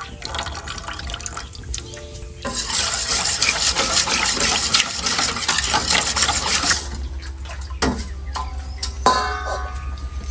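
Water running for about four seconds, starting about two seconds in, over background music with a steady beat. A couple of sharp clicks follow near the end.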